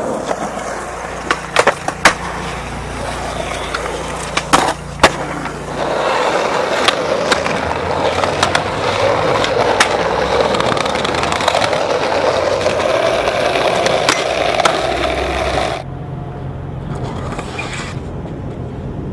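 Skateboard sounds: wheels rolling on concrete with several sharp clacks of the board in the first few seconds, then a long steady scraping grind along a ledge from about six seconds in, stopping shortly before the end and giving way to quieter rolling.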